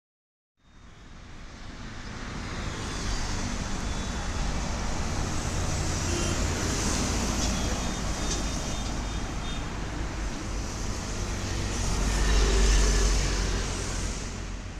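Highway traffic with heavy vehicles passing, a truck and a sleeper coach bus among them, fading in about half a second in. A deep engine rumble swells to its loudest near the end as a heavy vehicle passes close, then fades.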